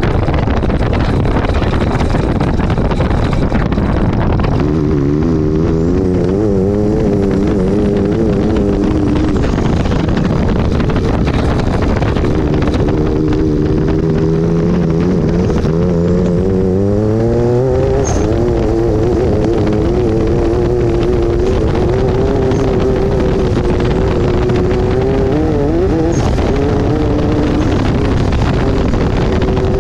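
Turbocharged off-road buggy engine running under way, its note wavering with the throttle. About halfway through it climbs steadily in pitch as the buggy accelerates, then levels off and holds.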